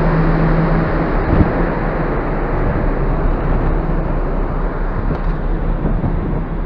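Steady wind over the microphone mixed with the low rumble of the ferry Ogasawara Maru under way at sea; a low steady hum drops out about a second in.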